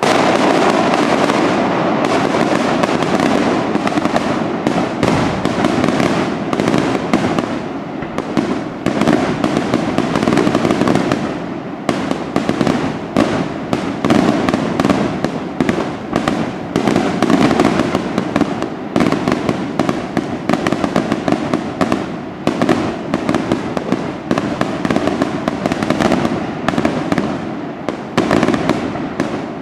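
Daytime aerial fireworks: a dense, unbroken barrage of bangs and crackling going off. The barrage thins briefly from about eight to twelve seconds in, then picks up again.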